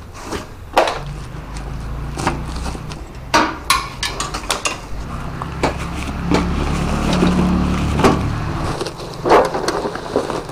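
Irregular knocks and clicks, about a dozen of them, some sharp and loud, over a steady low rumble.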